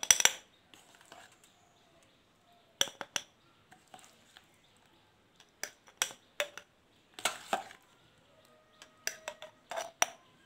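A spoon clinking and scraping against a glass jar and the rim of a plastic bowl as thick mustard chutney is spooned into the jar: irregular taps and scrapes in small clusters, a few leaving a brief ringing note.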